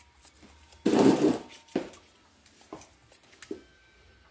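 Hands working on metal parts of a tractor's hydraulic lift cover: a brief scraping rub about a second in, then a few light clicks and taps.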